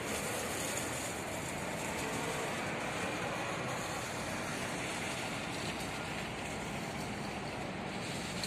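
Steady outdoor noise of a large construction site, an even rushing hiss with no distinct knocks or voices standing out.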